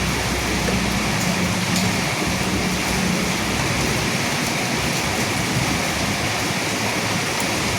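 Steady rain falling on dead leaves, with the tail of a low thunder rumble fading out over the first two seconds.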